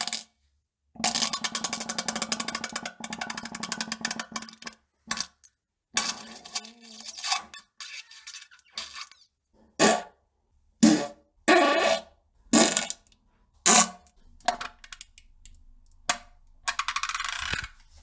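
A string of fart sounds, one after another with dead silence between them: first a long fluttering one of about three seconds, then a dozen or so shorter ones.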